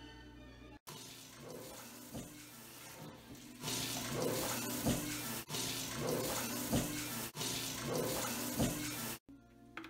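Kitchen faucet running into a sink as hands are washed under it. The water starts about a second in, grows louder about halfway through, and stops suddenly just before the end.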